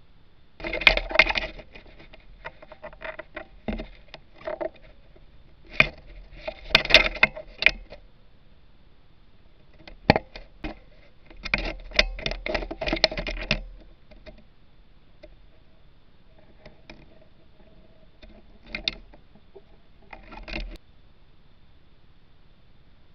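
Close scratching, tapping and rustling in several irregular bursts: a kestrel shifting its talons and brushing its feathers against the camera housing and ledge it perches on.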